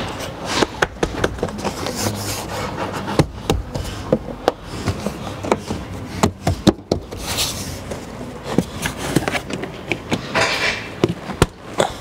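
Hands pressing the rubber door weatherstrip and plastic pillar trim back into place by hand: a string of irregular sharp taps and knocks with short stretches of rubbing.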